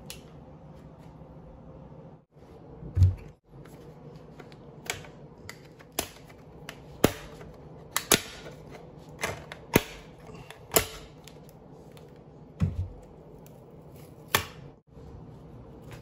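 A string of sharp plastic clicks and snaps as the cover is pried off a Bird scooter battery pack, with two dull thumps, about 3 seconds in and near the end.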